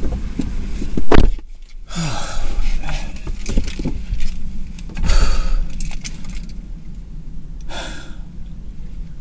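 Small metal items jingling and rustling as they are handled, in several short bursts, with a loud thump about a second in.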